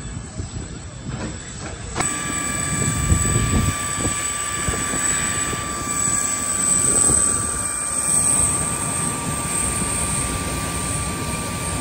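Boeing 747-8's GE GEnx turbofan in its initial start-up: several steady high whines over a low rumble, beginning suddenly about two seconds in.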